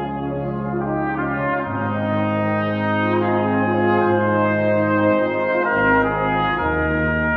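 Brass ensemble of trumpets, French horns, trombones and euphonium playing a slow, sustained chordal passage. The bass line steps to a new note a couple of times under the held chords.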